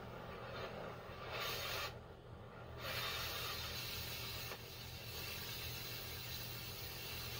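Oxy-fuel cutting torch hissing as it cuts through a steel wheel frame, throwing sparks. The hiss drops out for about a second around two seconds in, then comes back louder.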